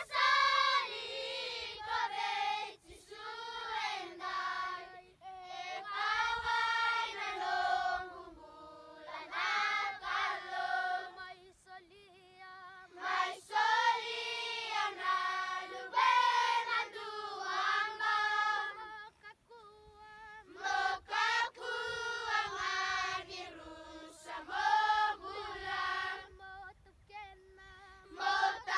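A children's choir singing a song together, voices only, in phrases broken by short pauses for breath.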